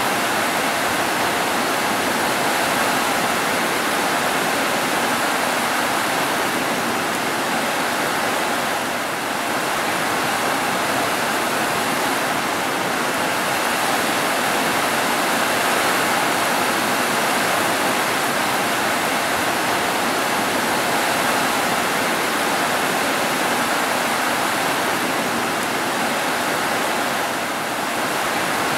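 Heavy rain falling on roofs, a dense, even hiss of rainfall that holds steady throughout.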